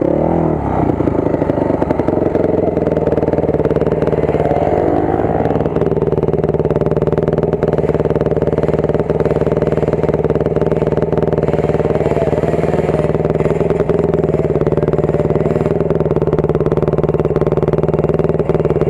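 Single-cylinder enduro dirt bike engine settling from revs to a steady idle within the first second, then idling on. A short rising whine comes about five seconds in.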